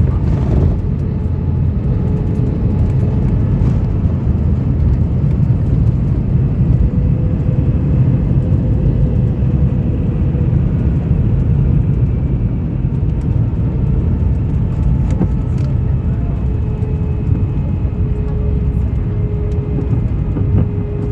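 Airbus A319 cabin noise during landing: a loud, steady, deep rumble of the engines and rushing air, with a faint steady hum above it.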